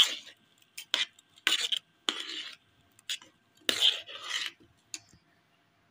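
Plastic spoon stirring fruit pieces into thick beaten yogurt in a metal pot, scraping against the pot's side and bottom. A series of irregular short scraping strokes that stop about five seconds in.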